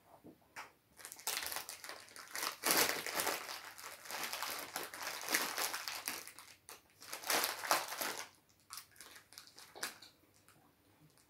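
Cellophane wrapper crinkling and crackling in irregular bursts as it is pushed and rummaged through, from about a second in until shortly before the end.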